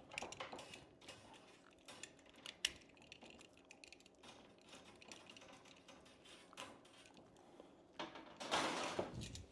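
Light scattered clicks and taps of a steel fish tape and electrical cable being handled at a wall opening, then about a second of scraping near the end as the cable is pulled through.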